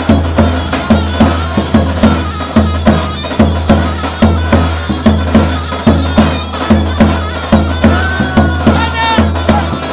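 Davul and zurna playing a dance tune: the big bass drum keeps a steady, even beat under the zurna's wavering melody, which stands out more near the end.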